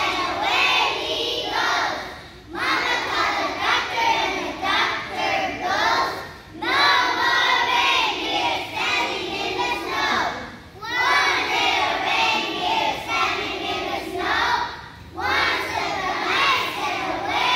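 A large group of young children singing together, in phrases of about four seconds with brief breaks between them.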